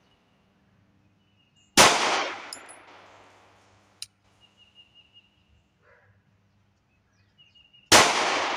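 Two 9mm pistol shots from an AREX Zero 2S, fired about six seconds apart in slow, aimed fire. Each sharp report is followed by a fading echo that lasts about a second.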